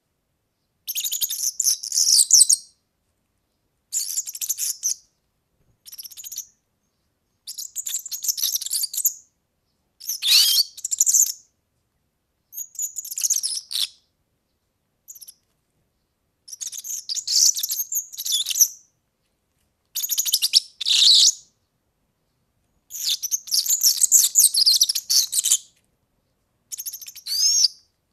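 European serin singing: about eleven short phrases of fast, very high-pitched twittering, each a second or two long, with brief silent gaps between them.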